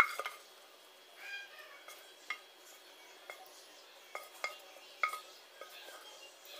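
A wooden spatula scraping thick, sticky sauce out of a nonstick pan into a cut-glass bowl, with a string of sharp clinks and knocks from the spatula, pan and glass. The loudest clink comes right at the start.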